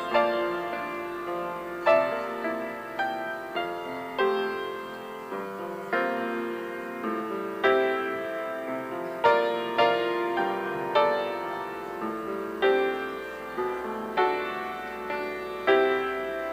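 Slow, gentle solo piano music, with chords and melody notes struck about once a second and left to ring out.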